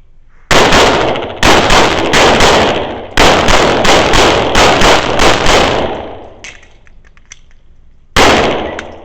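Pistol fired rapidly in strings. A single shot comes about half a second in, then a quick string, a brief pause, and a faster string of around ten shots. A final shot comes near the end, and each report echoes.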